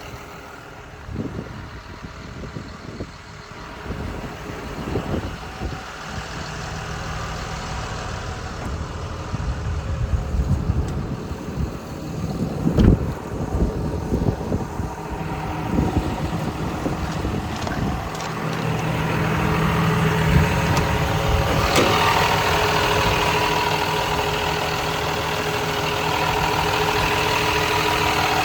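Diesel engine of a John Deere 210G LC excavator idling, with scattered knocks and clunks through the first half. From about two-thirds of the way in the idle comes through louder and steadier.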